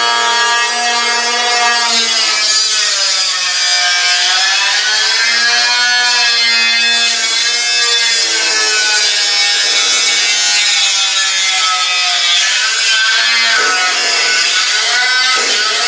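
Electric power tool cutting through steel frame metal, its whine running continuously and sagging and recovering in pitch every few seconds as it bogs under load.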